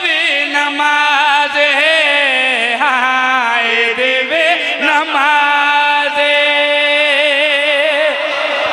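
A man chanting a verse of Punjabi devotional poetry in a drawn-out, ornamented melody, with long held notes and wavering runs.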